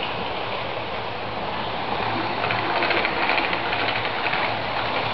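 Model railway locomotive running on the track: a small electric motor whirring with the wheels rattling over the rails. A fast, fine clatter grows louder from about two seconds in.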